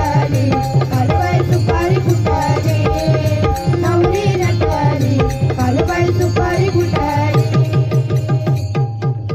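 Music with fast, dense drumming and a melody line bending over it, stopping abruptly near the end.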